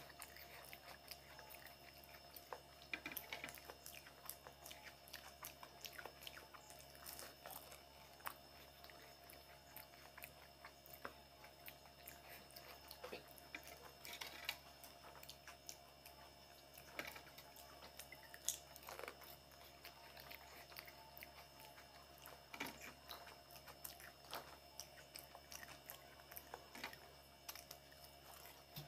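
Faint mouth sounds of fuchka (pani puri) being eaten: crisp hollow puris filled with tamarind water bitten and chewed, a scatter of short crunches and wet chewing sounds, over a steady faint hum.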